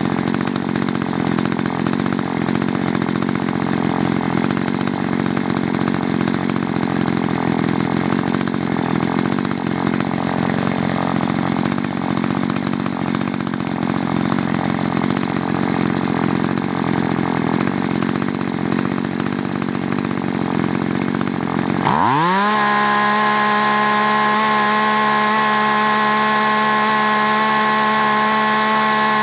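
Two-stroke chainsaw engine idling at about 2,600–2,800 rpm. After about twenty seconds the throttle is opened and it revs up sharply to full speed, then holds steady at its no-load top speed of about 12,900 rpm.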